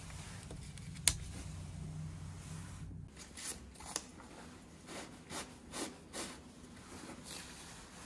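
A single sharp tap about a second in, as a small plastic piece is set on a paper card on a table. Then soft rustling and light clicks of a quilted drawstring shoulder bag being handled as the card is tucked inside.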